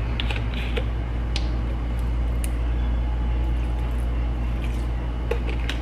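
A steady low hum throughout, with a few faint clicks and taps from handling a bottle of vinegar as it is poured over pork in a plastic mixing bowl.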